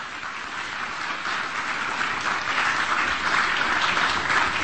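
Audience applauding, the clapping growing louder.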